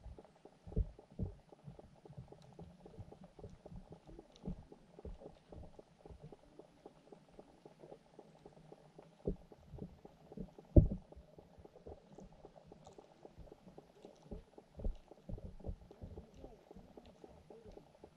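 Muffled underwater sound picked up by a submerged camera in a fish pond: a low rumble broken by many irregular soft knocks and thumps, the loudest a little past halfway.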